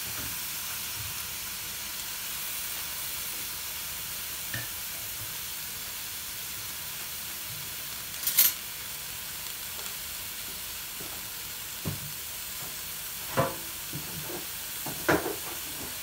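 Raw mutton pieces and chopped garlic sizzling in a pan on a gas burner, a steady hiss. A sharp click comes about eight seconds in, and a few short knocks near the end.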